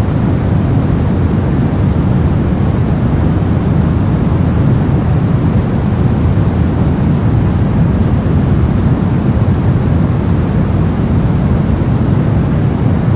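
Steady brown noise: a constant, even rumbling hiss, heaviest in the low end and fading toward the highs, with no changes.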